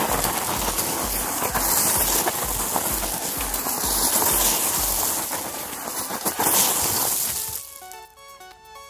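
Knobby rear tyre of a homemade electric scooter spinning in place on loose gravel, spraying stones in a steady rush of noise that stops about seven and a half seconds in. Background music with a beat plays under it.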